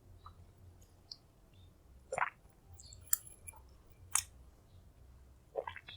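Faint mouth sounds of a person taking and tasting a spoonful of lime juice and soy sauce: a few short lip smacks and clicks, spread out.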